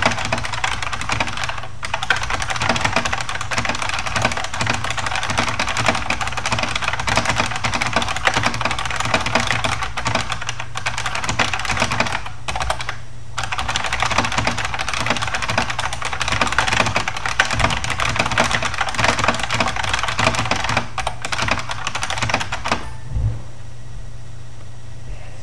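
Very fast typing on a Unicomp buckling-spring mechanical keyboard: a dense, continuous stream of clicky keystrokes. It pauses briefly about two seconds in and again for about a second near the middle, then stops near the end, leaving a steady low hum.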